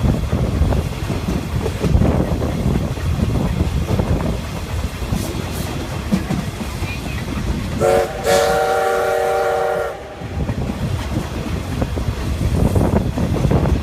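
Train running noise heard from a carriage behind the CK124 steam locomotive: a steady rumble with rail clatter. About eight seconds in the locomotive's steam whistle sounds, a brief blast then a longer one of about two seconds.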